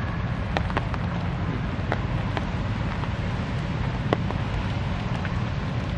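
Steady low outdoor rumble with a few short, faint clicks scattered through it.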